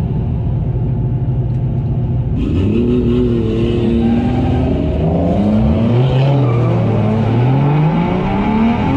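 Turbocharged 1JZ-GTE inline-six in a Nissan 240SX (S13) drift car, heard from inside the cabin: it runs steadily at first, then about two and a half seconds in the revs climb as the car pulls away, dip once at a gear change about halfway through, and climb again.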